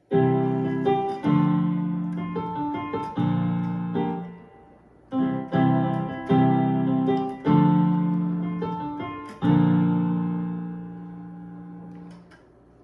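Piano or electric keyboard playing a slow introduction of sustained chords, struck roughly once a second and left to ring and fade, with a brief pause a few seconds in and a long held chord dying away near the end.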